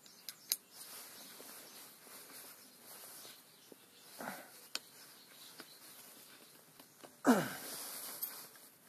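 Small metal clicks and scrapes from a hook made of an old screwdriver, worked into a tractor input shaft's bore to pull out an O-ring. About seven seconds in there is one louder, sudden noise whose pitch falls quickly.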